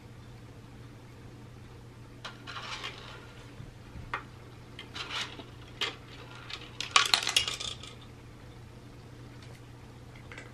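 Dry cat kibble rattling and clattering against the plastic levels of a Catit Senses 2.0 Food Tree as a cat paws at it, with pieces dropping onto the plastic tray. It comes as scattered clicks and short rattles from about two seconds in, with the loudest flurry around seven seconds.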